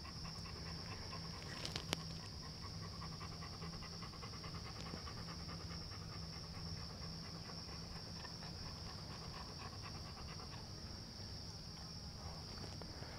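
Faint, steady panting of a dog. A light click or two comes about two seconds in.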